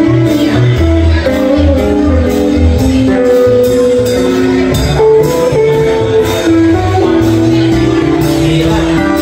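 Live band music: acoustic and electric guitars playing over percussion that keeps a steady beat of about two strikes a second, with a voice singing along.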